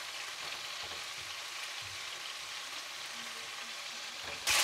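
Finely chopped onion sizzling steadily in hot oil in a frying pan, stirred now and then with a slotted spatula. The sizzle grows louder just before the end.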